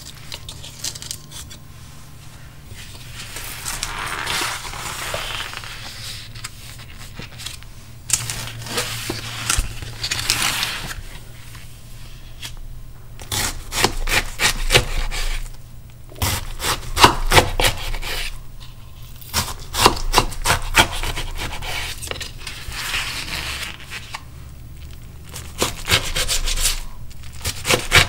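Kitchen knife slicing through a wedge of napa cabbage kimchi on a paper-covered wooden cutting board, in runs of quick strokes, with rubbing handling sounds in between.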